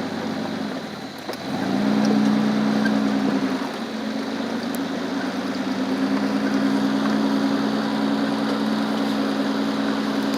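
Car engine running with road noise, a steady hum that gets louder about a second and a half in.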